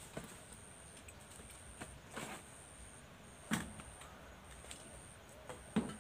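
A thin, high-pitched trill that comes and goes in stretches of about a second, with a few short knocks, the loudest about three and a half seconds in and just before the end.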